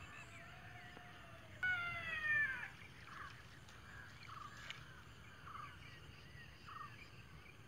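Birds calling: one loud, drawn-out call falling in pitch about two seconds in, followed by several short, scattered chirps.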